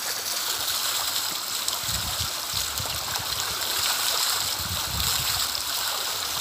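Steady rush of water running from the Bica do Pajé spring spout and stream, with a few low rumbles about two and five seconds in.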